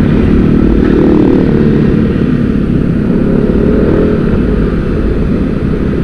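Motor scooter engine running at road speed, its pitch wavering slightly, with a heavy rush of wind noise.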